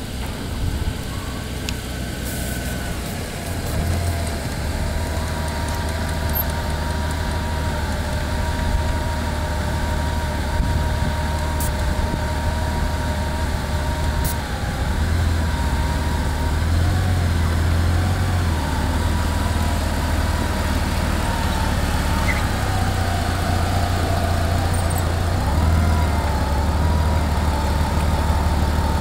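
Honda Gold Wing's flat-six engine running at low revs as the heavy touring bike creeps along, its low hum swelling slightly a few times. A thin whine wavers in pitch above it.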